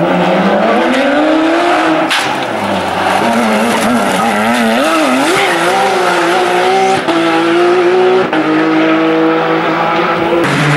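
Porsche 911 GT3 rally car's flat-six engine accelerating through a chicane. Its revs climb, rise and fall quickly several times through gear changes and lifts, then hold nearly steady as the car pulls away.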